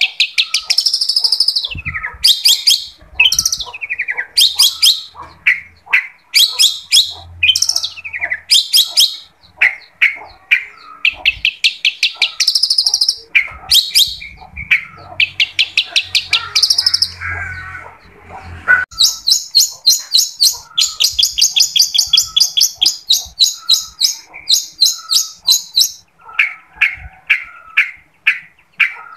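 Long-tailed shrike (cendet) singing a loud, fast chattering song: bursts of rapidly repeated high notes and trills, with a long run of quick, even notes about two-thirds of the way through.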